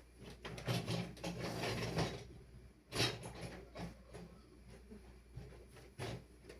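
Door of an HQ 8-place dishwasher being pushed and worked to make it close and latch: rattling and scraping for the first two seconds, then a sharp knock about three seconds in and another near the end.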